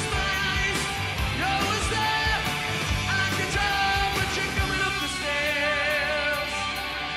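Rock song playing: a male voice sings a melody over a steady drum beat and band.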